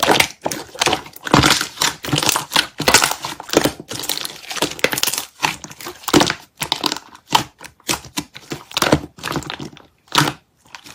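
Peach yogurt slime being squeezed and stretched by hand, giving irregular sticky crackles and pops that thin out to a few separate pops near the end.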